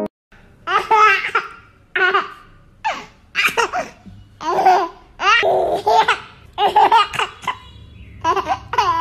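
Hearty laughter in about nine high-pitched peals, starting a little under a second in.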